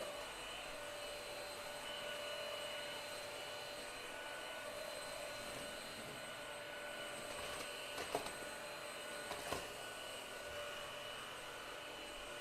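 Altus stick vacuum running steadily on the floor, a constant airflow hiss with a steady motor whine. Two sharp clicks come about eight and nine and a half seconds in.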